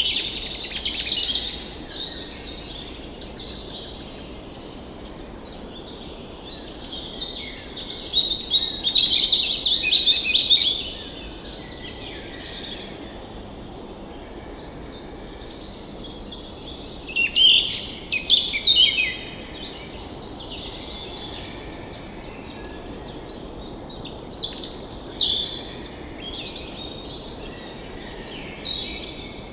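Several songbirds singing and chirping, with louder spells of overlapping song about a second in, around eight to eleven seconds, near eighteen seconds and around twenty-five seconds. A faint, steady stream rush runs underneath.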